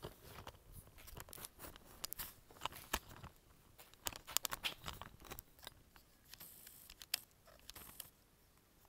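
Handling noise: irregular sharp clicks, rustles and scrapes as the camera and the stopped chainsaw are moved about. The sounds are busiest about four to five seconds in and thin out near the end. No engine is running.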